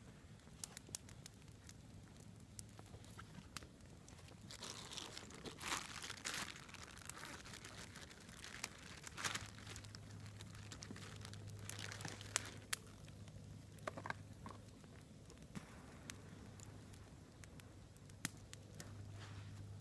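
A plastic bag crinkling in bursts as it is handled and opened, with scattered sharp pops from a crackling wood campfire.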